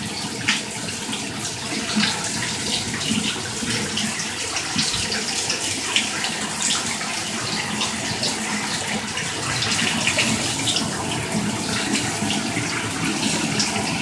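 DreamSpa LED shower head spraying water steadily, the spray splashing down into the tub with many small scattered splashes.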